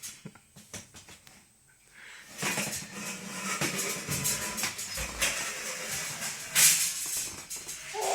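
A folding clothes drying rack rattling and scraping across the floor as it is pushed along, starting about two and a half seconds in and going on as a dense clatter of small knocks.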